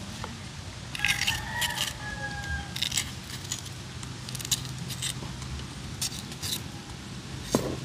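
Light metallic clinks and knocks from cooking utensils at odd moments, with a short high scraping squeal about a second in, over a steady low hum.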